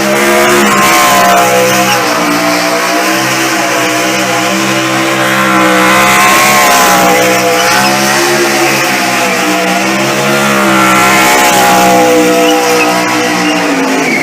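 NASCAR stock car's V8 held at high revs during a victory burnout, its note wavering up and down as the throttle is worked, over a steady hiss of spinning rear tires.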